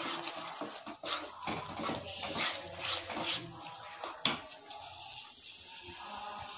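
Spatula stirring and scraping thick masala paste as it fries in a kadai, in short repeated strokes, with one sharp knock about four seconds in.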